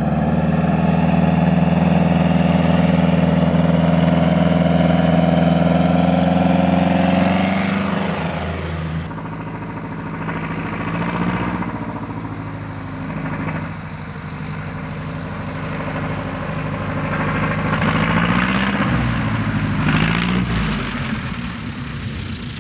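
Single-engine light plane's propeller engine running steadily and loudly, its pitch dropping at about eight seconds. After a break the engine is heard again as the plane passes low, its pitch rising and then falling, and it fades near the end.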